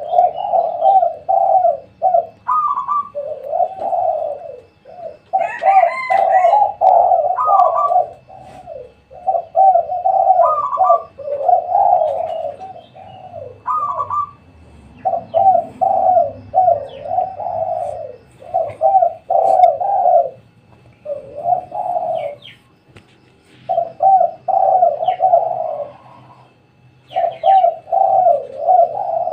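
Spotted doves (tekukur) cooing, their rolling coo phrases repeated one after another with short pauses.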